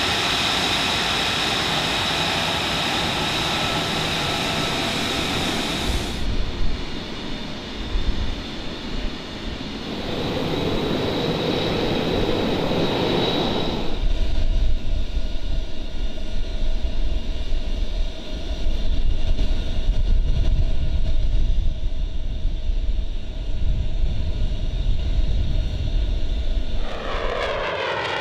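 F-35B Lightning II jet engine sounds across several edited shots: first a taxiing jet's steady high-pitched whine, then a deep, loud rumble of a jet on its takeoff roll from about halfway through. Near the end a jet passes overhead with tones falling in pitch.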